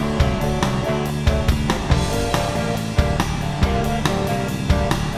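Rock music with a drum kit and guitar, playing to a steady beat.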